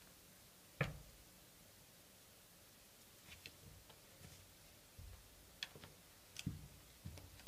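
Near silence in a small room, broken by a handful of short, soft knocks and thumps. The loudest comes about a second in, and a cluster of knocks follows in the last few seconds.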